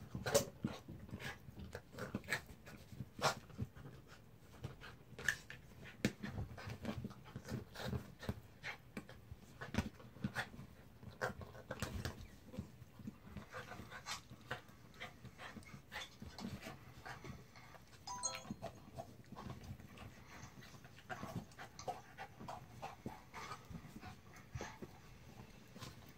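A dog panting as it climbs on, pushes and mouths a plastic ride-on zebra toy, with many small knocks, thumps and rubbing sounds from the toy. A brief squeak about two-thirds of the way through.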